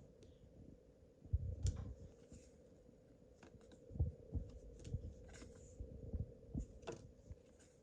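Pokémon trading cards being handled and leafed through: scattered soft clicks and card slides with a few low thumps at irregular intervals, over a faint steady hum.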